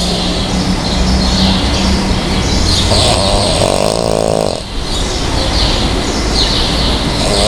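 Loud rhythmic snoring: a rasping snore about three seconds in and another starting near the end, with breathy hissing between them.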